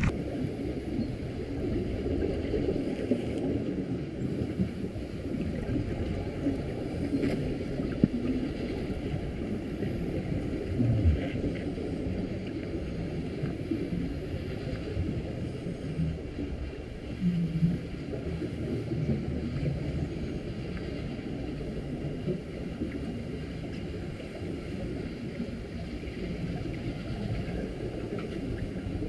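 Muffled underwater noise heard through a camera's waterproof housing: a steady low rush and rumble with occasional bubbling from the scuba divers' exhaled air.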